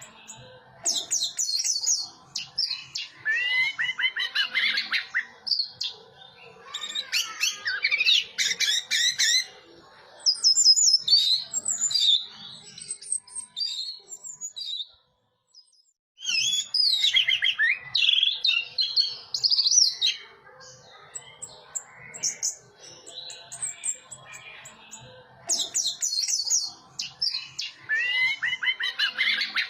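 Orange-headed thrush (anis merah) singing in bursts of rapid, varied warbling phrases, high-pitched and full of quick glides, with a silent break of about a second halfway through.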